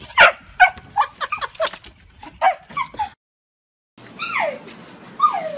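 Husky whining and yipping excitedly in a rapid string of short, rising-and-falling cries. The cries stop dead about three seconds in, and after a second of silence a dog gives a long falling whine.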